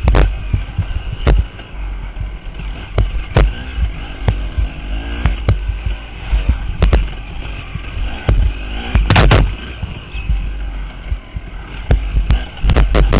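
KTM dirt bike's engine running hard on a rough dirt trail, under a heavy rumble of wind on the microphone. Frequent sharp knocks and thuds as the bike and camera jolt over bumps, the biggest cluster about nine seconds in.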